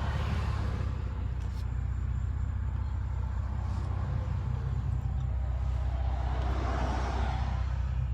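Steady low rumble of a car's engine and tyres on the road, heard from inside the cabin while driving, with a brief swell of noise about seven seconds in.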